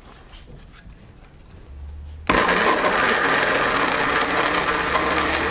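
Personal single-serve blender switched on about two seconds in, its motor running steadily as it purees cooked fruit pieces.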